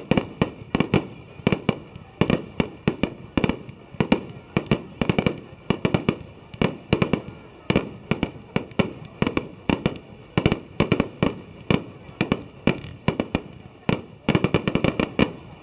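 Fireworks going off in quick succession: a dense, continuous series of sharp bangs, several a second, easing off near the end.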